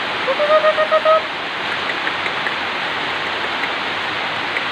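Steady rain falling, an even hiss with a few faint drip ticks. About half a second in, a short run of about six quick calls at one steady pitch.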